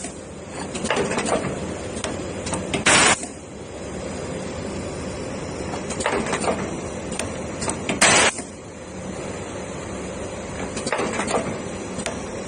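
Automatic soldering machine running through its cycle: a steady mechanical noise with a short, loud burst of hiss about every five seconds and fainter ones in between.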